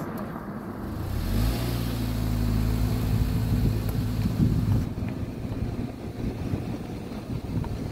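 Car on the move: engine running with road and wind noise. A steady low engine hum stands out from about a second and a half in until about five seconds in, after which mostly rumble remains.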